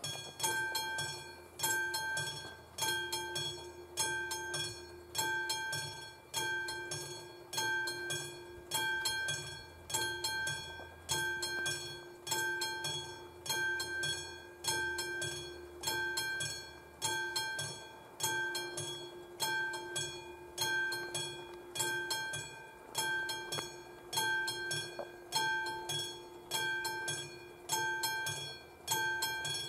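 Level-crossing warning bell, a classic bell, starting up and ringing steadily, about one ringing stroke a second, each dying away before the next. The crossing has just activated for an approaching train.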